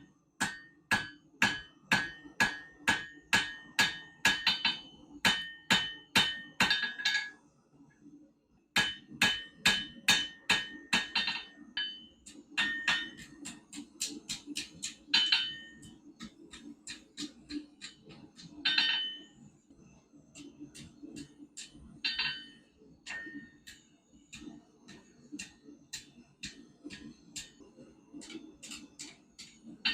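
Blacksmith's hammer striking hot iron on an anvil, forging a scroll. It goes in steady runs of about two to three ringing blows a second, pauses briefly, then gives a few heavier blows with lighter taps between them.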